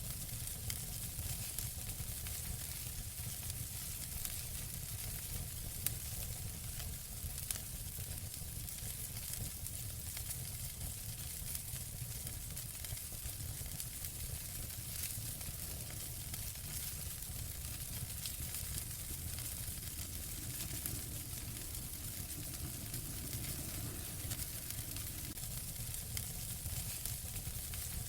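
Wood fire burning in a fireplace: a steady hiss full of small crackles, with a couple of sharper pops about a quarter of the way in.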